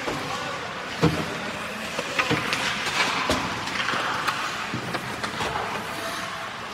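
Ice hockey rink noise: skate blades scraping the ice under a steady hiss, with several sharp knocks of sticks hitting pucks, the loudest about a second in.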